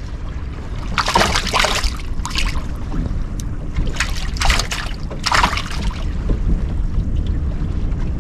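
Steady low rumble of a bass boat held on spot lock by its trolling motor, with wind on the microphone. Four short hissing splashes of water come at about 1, 2.5, 4 and 5.5 seconds in.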